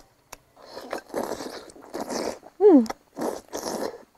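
Close-up eating noises from someone biting and chewing stewed chicken: five short, wet, noisy bites or sucks about half a second each, with a brief voiced sound in the middle.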